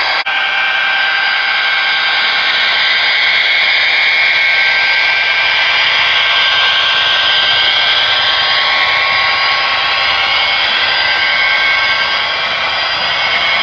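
HO scale model freight train rolling past, a steady rushing of its wheels on the track and its locomotive's motor, with faint gliding whines in the middle. A single brief click comes just after the start.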